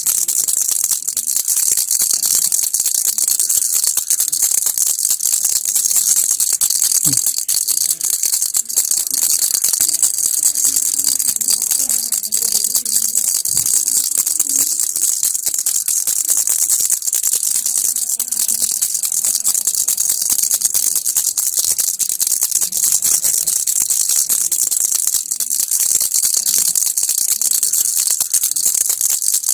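A baby rattle shaken without a break, giving a fast, dense, high-pitched rattle.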